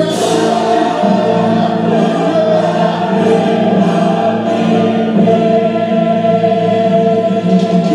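Music with sustained, choir-like chords held steadily, no lyrics sung.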